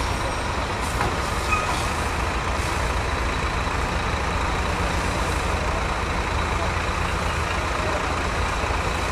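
Hose water spraying steadily onto wreckage in a dump truck's bed, a continuous hiss and splash, over the low steady rumble of the truck's running engine.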